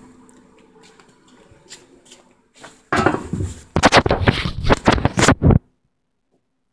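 Handling noise from a phone held at arm's length: fingers rubbing and knocking on the body near the microphone, in a run of loud scratchy rustles and taps, then the sound cuts off suddenly.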